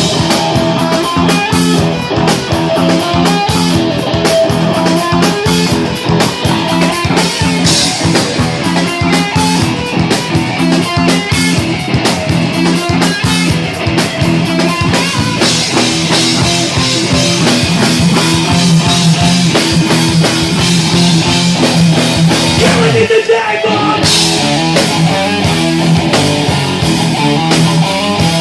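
Live rock band playing an instrumental stretch: distorted electric guitar, bass and drum kit with a steady beat. About 23 seconds in, a guitar note dives sharply down in pitch.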